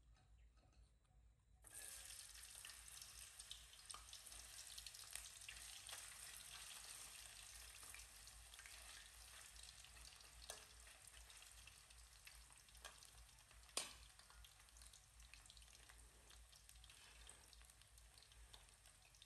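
Cut potato strips (French fries) hit hot oil in a wok about two seconds in and sizzle and crackle steadily from then on, with scattered small clicks of stirring. A single sharp click about two-thirds of the way through is the loudest moment.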